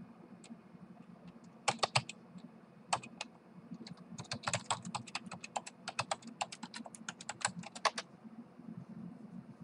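Computer keyboard typing: a few keystrokes about two seconds in and another near three seconds, then a quick run of keystrokes from about four to eight seconds in.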